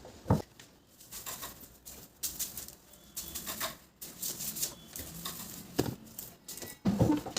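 Rustling and light clatter of household things being handled and moved while a bedroom is tidied, with one sharp knock just after the start.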